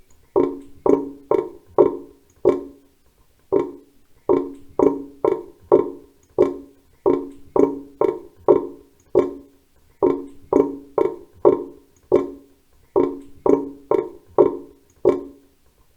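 Water drops falling into a sink drain, each a short, hollow, pitched plop, about two a second and unevenly spaced, with a pause of about a second near the start.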